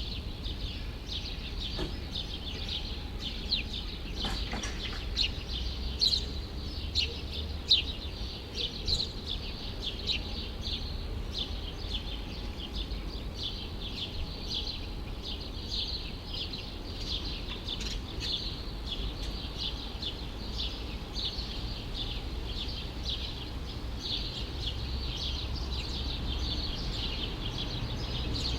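Birds chirping busily and continuously in quick short notes, over a steady low rumble of city background noise.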